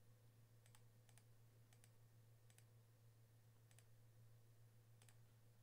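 Near silence with a steady low hum, broken by faint computer mouse clicks about a second apart as the list randomizer is re-run again and again.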